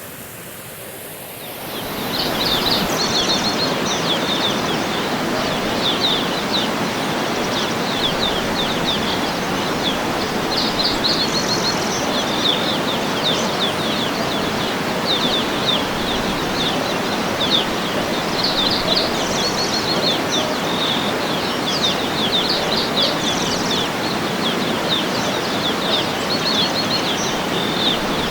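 Waterfall's steady rush of falling water, swelling to full level about two seconds in, with small birds chirping over it in quick repeated runs.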